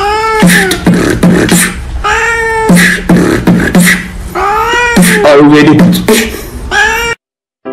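A person beatboxing a fast, even beat while a cat meows over it, about four long meows that rise and fall in pitch. The sound cuts off suddenly near the end.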